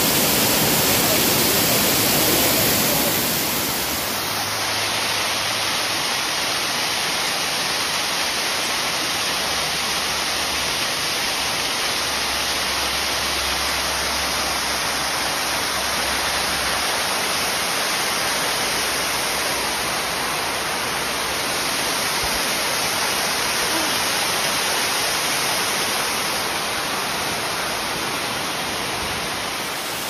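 Waterfall cascading over rocks, a steady rushing of falling water with no breaks. It becomes slightly quieter about four seconds in.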